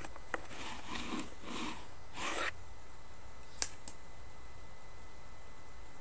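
Rustling handling noise close to a webcam's microphone: three soft swishes in the first couple of seconds, then two sharp light clicks about three and a half seconds in, over a steady faint hiss.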